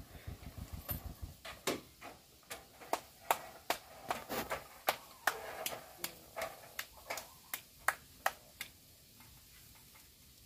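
Two cats eating rice off a plate: irregular sharp chewing clicks and mouth smacks, a few a second, thinning out near the end. A low engine rumble fades out in the first second or so.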